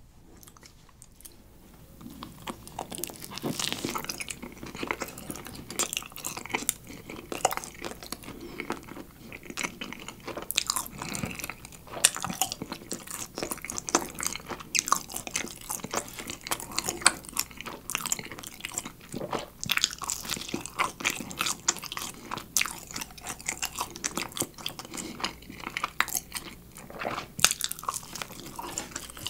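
A man biting and chewing gorgonzola pizza topped with honeycomb, close to the microphone. After a quiet first two seconds, a dense, irregular run of sharp mouth clicks and smacks follows.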